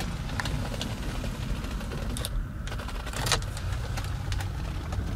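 BMW X5 E53 engine idling, a steady low hum, with a handful of sharp clicks and taps over it, the loudest just after three seconds.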